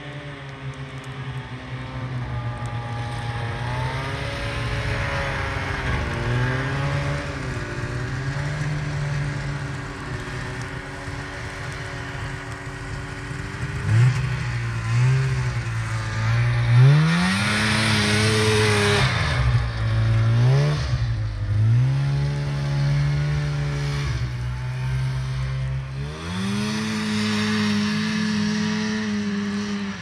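Old two-stroke snowmobile engine running under way, heard from on the sled. Its pitch rises and falls as the throttle is opened and eased, with a run of quick revs about halfway through and a higher, held pitch near the end.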